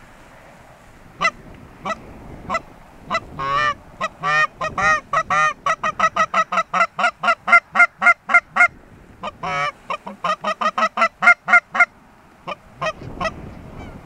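Canada goose honks and clucks. A few spaced honks open it, then two fast runs of several clucks a second, each begun by a longer wavering moan, then a few spaced honks again near the end: calling to a flock working over the decoys.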